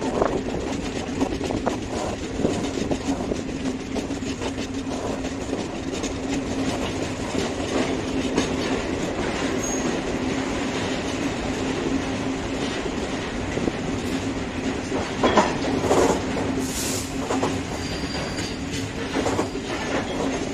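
Diesel passenger train running, heard from an open carriage doorway: a steady drone with the wheels clicking and rattling over the track. About three quarters of the way in there is a cluster of louder clatters, and near the end a brief high squeal.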